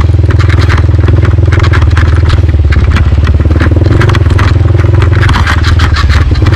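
CrossFire motorcycle engine running steadily while riding off-road, loud, with a dense rapid clatter and scraping over it.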